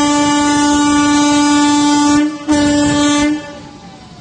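Electric freight locomotive's horn sounding a long blast that breaks off about two seconds in, then a short second blast ending just after three seconds. After the horn stops, the approaching train's rumble is left.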